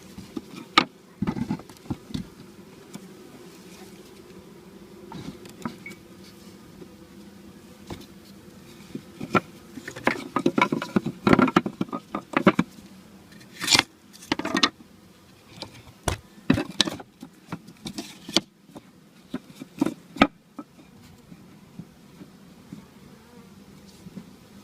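Many honeybees buzzing in a steady loud hum around a newly installed hive. Frequent knocks and rustles cut through, thickest in the middle stretch.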